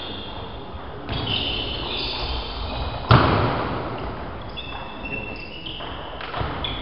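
Play at a table tennis match in a gymnasium hall: short high squeaks come and go, and about three seconds in a single loud thud rings out through the hall.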